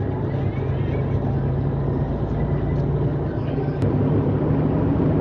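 Steady in-cab drone of a semi-truck's engine and tyre noise while cruising on the highway.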